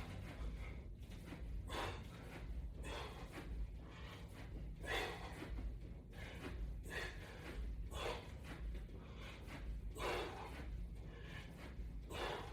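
A man breathing hard in sharp, noisy breaths about once a second, in time with repetitions of a resistance-band exercise.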